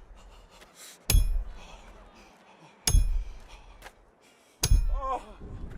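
Hammer blows on a metal nail, three of them about two seconds apart, each with a brief metallic ring: the sound of nails being driven into the cross. A short wavering cry of pain comes just after the last blow.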